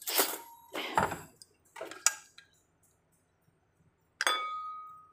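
A few short noisy sounds, then about four seconds in a utensil strikes the stainless steel cooking pot with a clink that rings for about a second.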